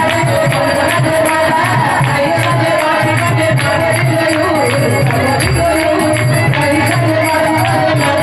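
Bengali kirtan music: singing over a hand drum beating a steady rhythm, with sharp metallic strokes of hand cymbals and a harmonium.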